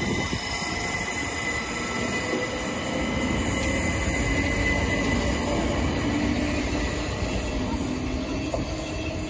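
Southern Class 377 Electrostar electric multiple unit running along the platform: a steady rumble of wheels on rail, with a faint motor whine in the middle of the pass.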